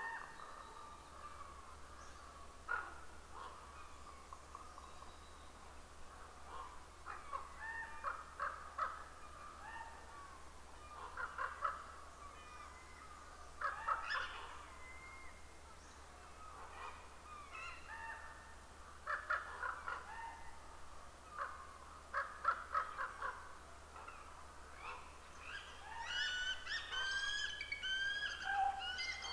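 Bird calls: scattered clusters of short calls, with a busier run of higher chirping near the end, over a steady low hum.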